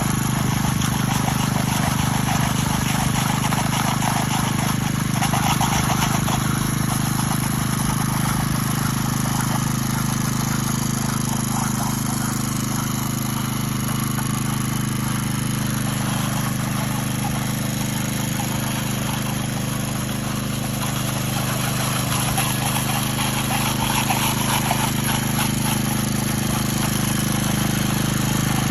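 Power trowel's engine running at a steady speed as the machine smooths wet concrete, a constant hum with no change in pitch.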